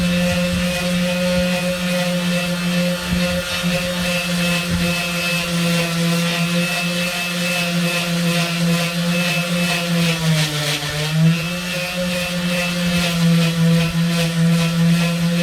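Handheld electric sander running steadily against a van's body panel, its motor hum with a scratchy rubbing of abrasive on the surface. About ten seconds in the motor briefly slows under pressure, then picks back up.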